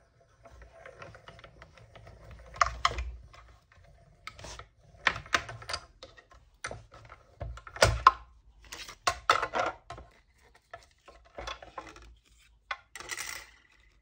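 Clicks and knocks of hard plastic as clear cutting plates with a die are cranked through a Stampin' Up mini die-cutting machine, then pulled out and taken apart. The clicks come in irregular clusters, with a faint steady hum in the first few seconds.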